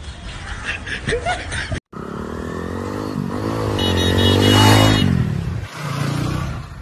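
A motorcycle passes close by, its engine note rising and falling as it comes up, loudest a little past the middle, then fading away.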